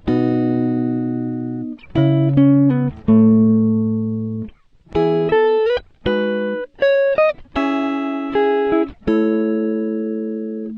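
Music: plucked guitar chords, each struck sharply and left to ring and fade, one after another in a short melodic passage.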